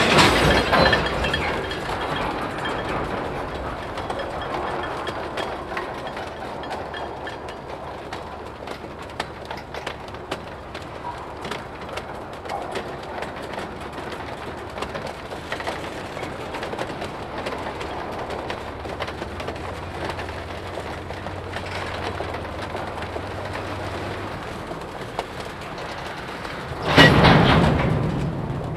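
Freight cars (tank cars and covered hoppers) rolling slowly on jointed track, their wheels giving off a steady rumble with many sharp clicks and clanks. A loud clatter rings out near the end.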